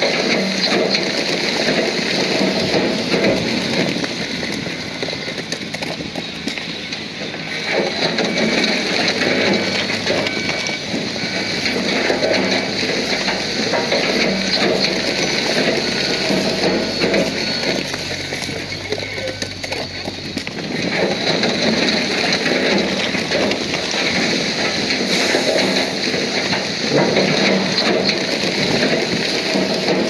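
Crawler bulldozer at work: a diesel engine running under a dense metallic clatter and grinding from its steel tracks. A steady engine hum stands out in the middle stretch, and the din eases a little twice.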